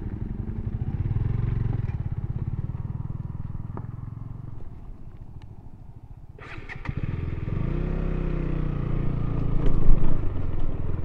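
KTM Duke 200's single-cylinder engine running with an even, rhythmic beat, dropping quieter about five seconds in, then after a few sharp clicks rising in pitch as the motorcycle pulls away and rides on a dirt track.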